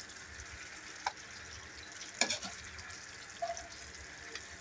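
Chicken caldereta sizzling in a metal wok over the flame while a metal ladle scoops out pieces, clicking against the pan twice, about one and two seconds in, and clinking once more near the end.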